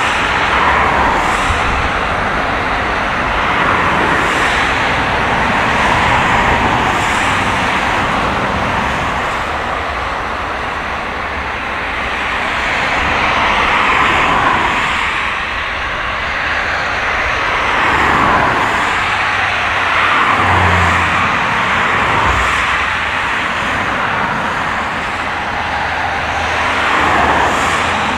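General Electric GE90 turbofan engines of a Boeing 777-300ER running as the airliner rolls along the runway. A steady rushing jet noise swells and eases every few seconds, with a whine that slowly shifts in pitch.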